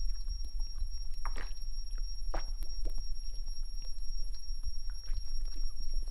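A man gulping liquor straight from a bottle, a few separate swallows, over a steady low hum and a thin high-pitched tone.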